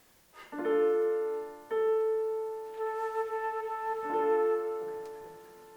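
Instrumental music from a flute performance: three sustained chords, starting about half a second in, near two seconds, and just after four seconds, each fading slowly; the last dies away near the end.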